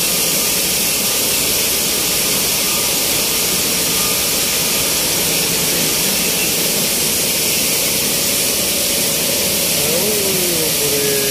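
Flour mill machinery running: belt-driven electric grinding mills and their pipework make a loud, steady mechanical noise, mostly a high hiss.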